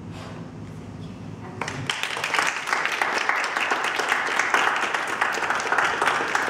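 A roomful of people applauding, starting about a second and a half in and keeping up a steady clatter of many hands.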